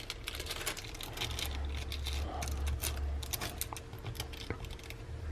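Scattered small clicks and taps of phone parts and tools being handled on a workbench, over a low steady hum.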